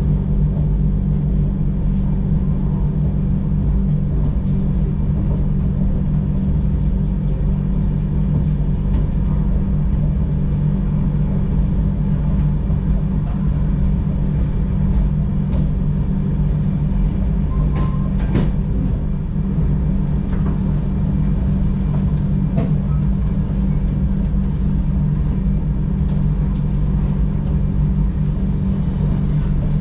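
Steady low hum and rumble inside a Tejas Express coach as the train rolls slowly out of a station, with a few light clicks.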